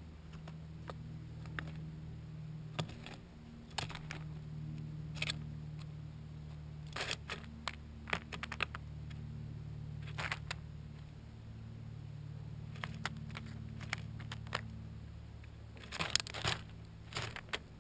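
Steller's jay handling peanuts in the shell right beside the camera: scattered sharp taps, scrapes and crackles of bill and feet on peanut shells and the tray, coming in short flurries, loudest about a second from the end. A low steady hum runs underneath.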